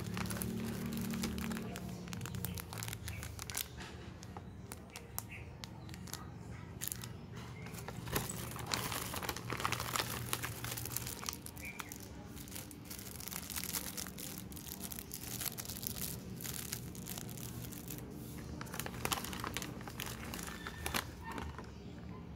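Plastic packaging crinkling and tearing as a self-heating rice meal kit is handled and opened, in irregular bursts of crackles.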